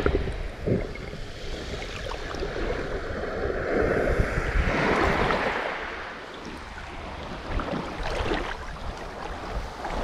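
Small sea waves washing against the shore, one swelling in about halfway through, with wind rumbling on the microphone.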